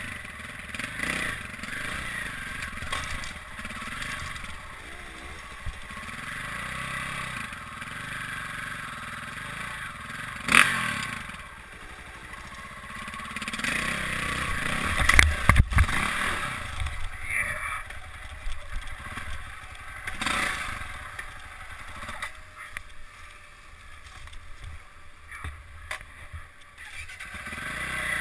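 Dirt bike engine running at low, varying revs while riding slowly over rough trail, with scraping through brush. Two sharp knocks stand out, about ten and fifteen seconds in.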